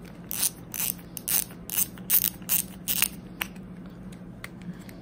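Shimano Twin Power spinning reel clicking as its front drag knob is unscrewed to take the spool off, about four sharp clicks a second, stopping about three and a half seconds in.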